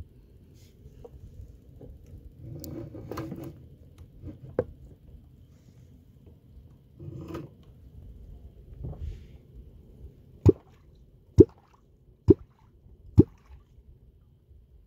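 Clonc (wooden catfish-calling tool) struck into the water, giving hollow plops that call wels catfish up. There is one stroke about four and a half seconds in, then four in a steady run near the end, a little under a second apart.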